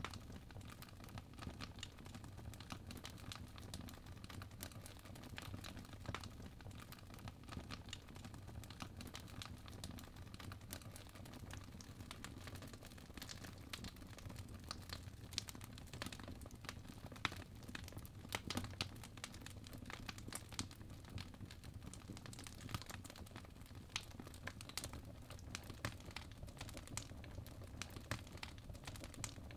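Apple Pencil tip tapping and scratching on the iPad Pro's glass screen in short, irregular clicks during drawing strokes, over a faint steady low hum. The clicks come thicker and sharper in the middle of the stretch.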